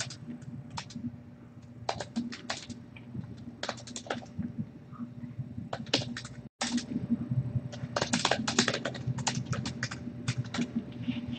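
Typing on a computer keyboard: runs of quick keystrokes with short pauses between them, over a steady low hum. The audio drops out completely for a moment about six and a half seconds in.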